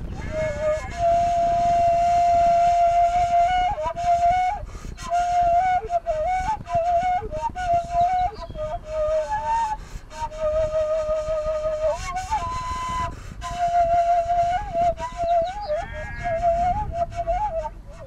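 Background music: a solo flute melody with long held notes and quick ornamented turns, over a low steady rumble.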